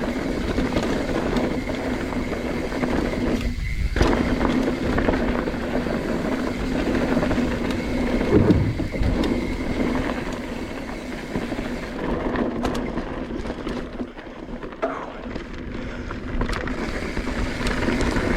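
Mountain bike riding fast down a dirt and rock trail: continuous tyre noise and rattling from the bike, with a short lull and a sharp knock about four seconds in.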